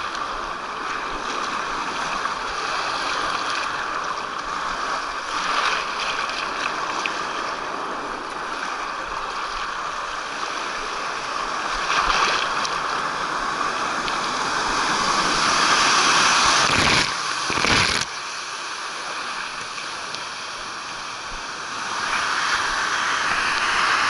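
Rushing, splashing water as a rider slides down a fibreglass water slide channel, with the water churning around the rider's feet. The rush grows louder through the middle of the ride, breaks off sharply twice near the three-quarter mark, and is quieter before picking up again near the end.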